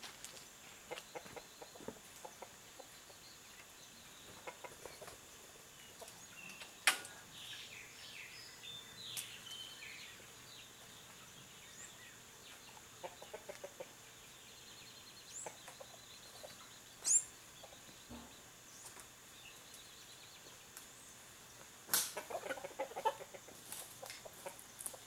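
Free-range chickens, hens and roosters, clucking softly and intermittently, with scattered short calls. A few sharp knocks stand out: one about seven seconds in and a cluster near the end. A faint steady high hum runs underneath.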